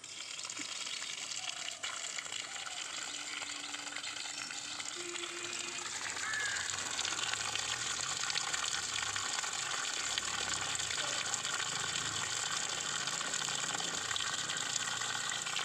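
Water gushing steadily from an outdoor PVC standpipe tap and splashing onto a child's sandalled foot and the grass below. The flow grows a little louder about six seconds in.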